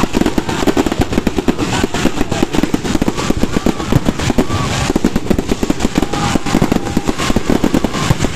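Fireworks and firecrackers going off in a dense, continuous crackle of rapid bangs, many a second, with no pause.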